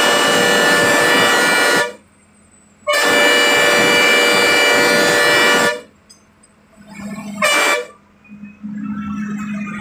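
KSRTC bus horn sounding as the bus takes hairpin bends on a mountain road: a loud blast of about two seconds, a second of nearly three seconds, then a short toot near the end. This is the usual warning honk at blind bends.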